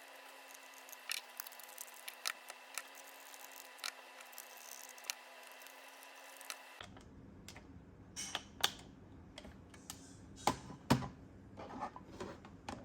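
Scattered small clicks and taps of a plastic toy belt being handled, sparse at first and then a closer run of louder clicks after a change in the background hiss about seven seconds in.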